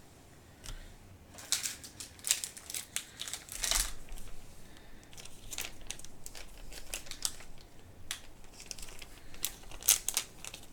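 Plastic crinkling and rustling as sports trading cards and their wrappers and sleeves are handled, in irregular short bursts, with a couple of sharper clicks near the end.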